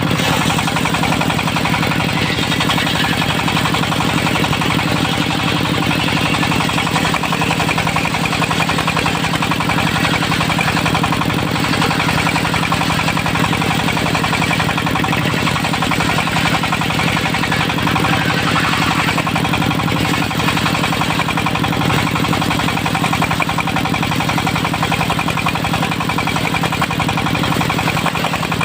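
Diesel engine of a mobile circular sawmill running steadily at constant speed, with a hiss above it from the running machinery.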